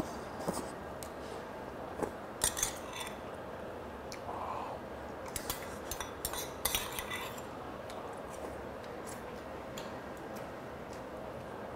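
Metal spoon clinking and scraping against a small stainless steel soup bowl, with a metal ladle tapping a metal pot, in scattered clinks that cluster about two and a half seconds in and again around six to seven seconds in.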